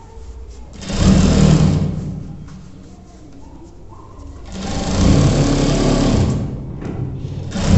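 Industrial sewing machine stitching a trouser seat seam in short runs: a brief burst about a second in, a longer one about halfway through, and another starting right at the end.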